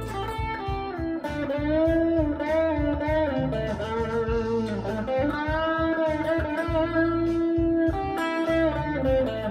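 Electric guitar playing a lead line of sustained notes with string bends, over a backing track with drums and bass.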